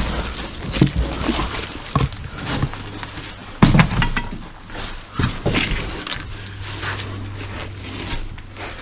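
Footsteps crunching and shuffling over dry leaves and rubble, with irregular sharp cracks and knocks as debris shifts and breaks underfoot.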